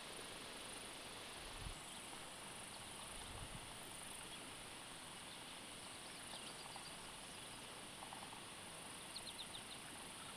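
Faint riverside ambience: a steady hiss with a few short, high insect chirps, including a quick run of about four near the end.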